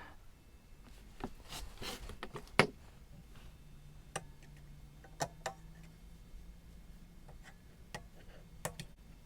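Scattered light knocks, clicks and rubbing of motorcycle exhaust parts being handled, with one sharper knock a few seconds in. A faint low steady hum starts partway through.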